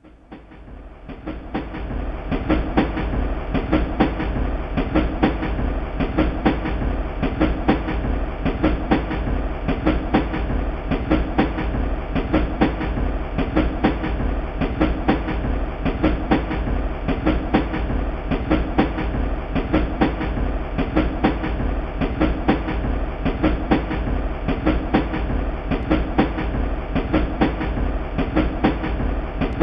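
Stand-in train sound: railway wheels clattering over rail joints in a steady, evenly repeating clickety-clack, fading in over the first couple of seconds.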